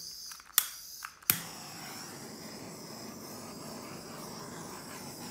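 Handheld butane torch clicked twice at its igniter, lighting on the second click, then its flame hissing steadily as it is played over wet acrylic paint to pop air bubbles.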